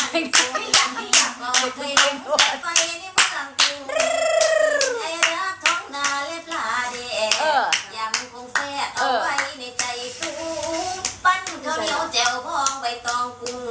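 Steady hand-clapping, about three claps a second, keeping time under a woman singing an Isan folk melody. About four seconds in she holds a long note that slides down in pitch.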